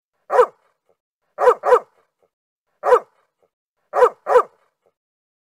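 A dog barking six short barks: one, then a quick pair, another single, and a final quick pair, with dead silence between them.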